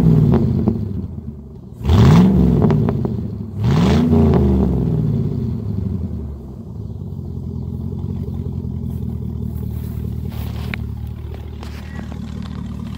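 Chevy 4.8 V8 revved in quick blips, each rising and falling back: the tail of one at the start, then two more about two seconds apart, after which it settles to a steady idle. The exhaust has no mufflers, only a catalytic converter on each side.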